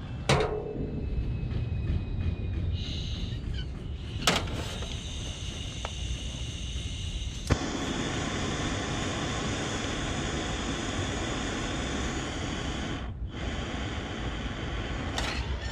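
A propane soldering torch is heard over a steady low rumble. A few sharp clicks come first, and at the last of them, about halfway through, a steady rushing hiss of burning gas starts abruptly and keeps going.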